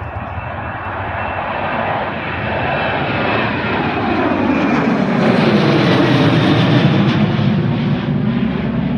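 Airliner passing close by, its engine noise growing louder to a peak about six to seven seconds in, with a whine that sweeps down in pitch as it goes by.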